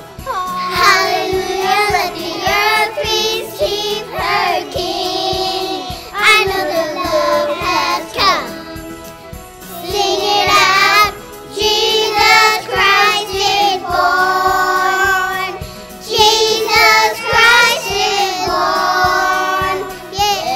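Children's voices singing a Christmas song together as a virtual choir, in phrases with short breaths between them.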